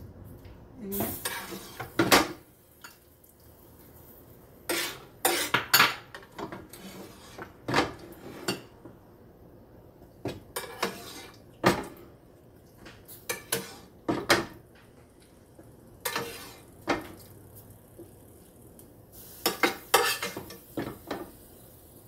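Slotted spoon scraping and clinking against a frying pan and tapping on bowls in irregular clatters with short pauses, as boiled papaya cubes are scooped out of the pan.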